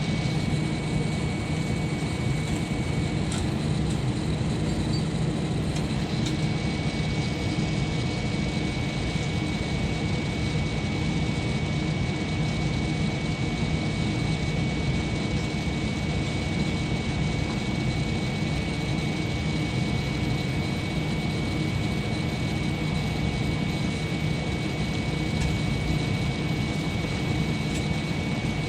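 Steady cabin noise inside a jet airliner: an even low drone with a thin, steady high whine over it.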